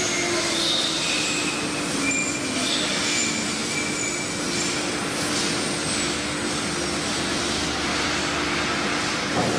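Chencan ATC CNC router spindle routing a door-panel pattern into a board, a steady tone from the spindle over the cutting noise. There is a short knock near the end.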